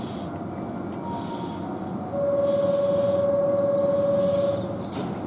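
A steady, single-pitched warning tone sounds for about two and a half seconds from about two seconds in, the signal for a train departing as its doors close. A short click follows just after it, over a faint hiss that pulses about every second and a half.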